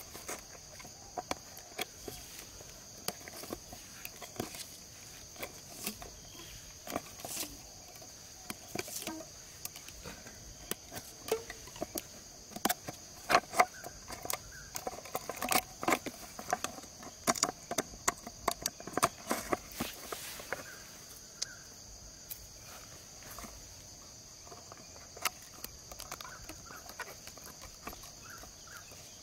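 Insects buzzing with a steady, high-pitched drone throughout. Over it come scattered clicks and taps from hands handling a plastic bottle and bamboo sticks, busiest in the middle.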